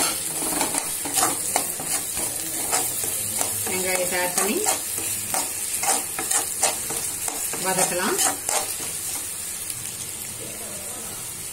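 Chopped onions sizzling in hot oil in a nonstick wok, with a slotted metal spatula stirring and scraping them in quick repeated strokes against the pan. The stirring strokes thin out near the end while the sizzle carries on.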